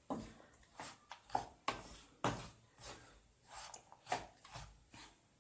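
Soft, irregular scraping strokes, about a dozen, as a utensil stirs and turns a thick, crumbly panjiri mixture of roasted flour, ghee, dry ginger, nuts and melting jaggery in a pan.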